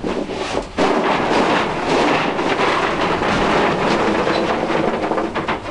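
Peanut pods in their shells rattling steadily as a metal tray of them is tipped out onto a wire-mesh drying screen. The rattle starts suddenly about a second in and fades just before the end.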